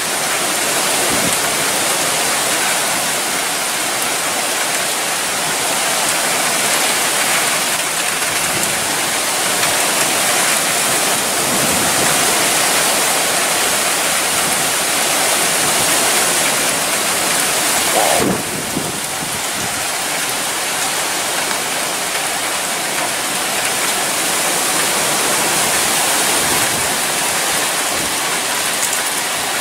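Thunderstorm rain and gusting wind: a loud, steady rushing hiss that drops a little about 18 seconds in.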